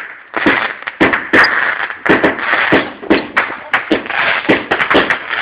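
Fireworks going off in a rapid, irregular run of sharp bangs, about three a second, with crackling between them.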